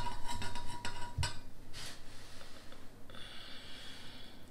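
Metal spatula clinking against a glass baking dish, a few sharp clicks in the first second or so, then quieter scraping and handling as a burger square is lifted out.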